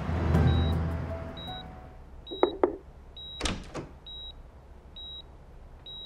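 A short high electronic beep repeating about once a second, with a few sharp knocks and clatters about two and a half and three and a half seconds in. A low rumble fades out over the first second or so.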